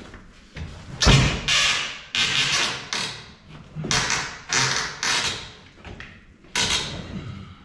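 Large wooden cabinet unit being pushed and worked into position: a string of about a dozen short scrapes and knocks, each starting sharply and fading quickly.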